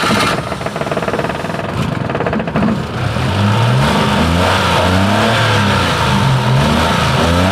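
Suzuki Multicab's carburetted engine cranking on the starter, then catching about three seconds in and running, revved up and down. It is starting again now that the fuel pump has been restored to fill the carburetor.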